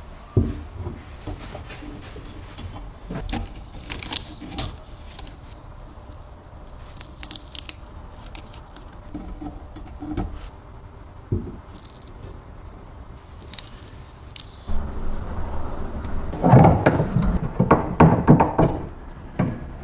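Scattered light clicks and metallic clinks as small stapler parts are handled and set down. About three-quarters of the way in, a low hum starts, with a spell of louder rattling and scraping.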